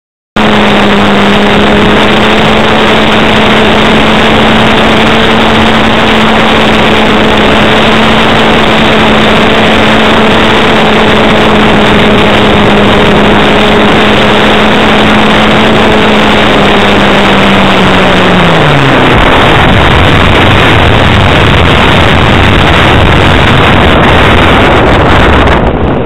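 Onboard recording of an electric RC plane's Axi brushless motor and APC 10x5 propeller: a steady hum under a loud rush of wind on the microphone. About two-thirds of the way through the hum drops in pitch and stops as the throttle is cut, leaving only the wind rush as the plane glides down.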